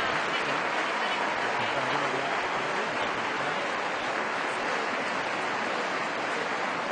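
Audience applause and crowd noise, a steady even din with no breaks.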